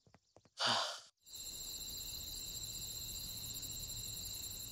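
A person's breathy sigh, about half a second long. After a brief gap, a steady high insect chirring begins and carries on.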